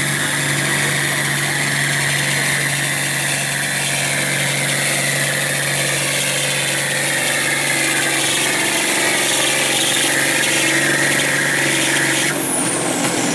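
Farm stock International tractor's diesel engine running hard while pulling a weight sled, its pitch slowly sagging as the sled loads it down. About twelve seconds in, the sound cuts abruptly to another tractor's engine winding down with a falling whine.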